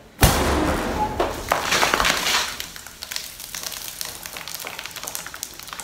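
Over-carbonated red fermented drink erupting from a glass bottle as it is opened: a sudden pop, then a gush of foaming liquid spraying out that dies down over about two seconds, leaving fizzing and dripping. The bottle does not break. Built-up fermentation pressure drives the eruption.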